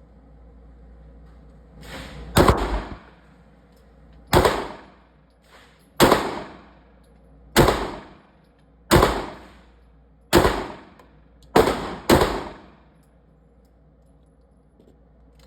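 Pistol shots fired singly at a steady pace: eight shots about a second and a half apart, the last two closer together. Each shot ends in a short, fading ring.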